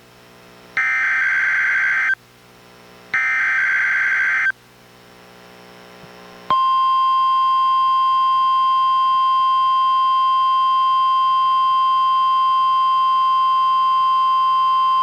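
NOAA Weather Radio Required Weekly Test signals from a Reecom R-1630 weather radio. First come two short, harsh bursts of SAME digital header data, about a second apart. After a pause of about two seconds, the steady 1050 Hz warning alarm tone starts about six and a half seconds in and holds.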